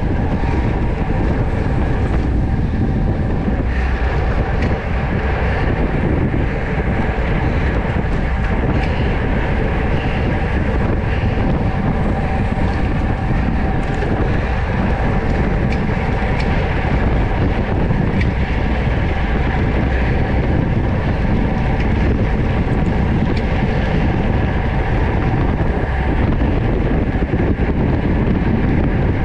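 Wind rushing over an action camera's microphone on a road bicycle racing at speed: a loud, steady low rumble with a faint even hum underneath.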